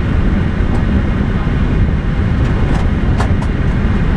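Steady loud low rumble inside an Airbus A321 cockpit on the runway: engine and airframe noise. A few faint clicks sound between two and three and a half seconds in, one ringing briefly.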